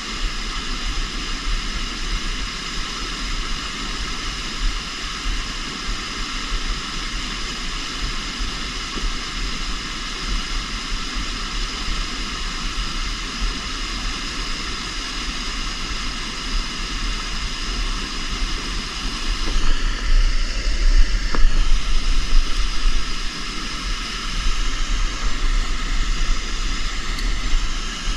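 Steady rush of river water, a continuous hiss with a low rumble underneath, swelling somewhat louder for a few seconds about two-thirds of the way through.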